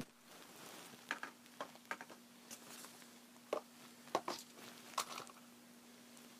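Faint, scattered light clicks and taps, about a dozen short ones spread irregularly, over a steady faint hum.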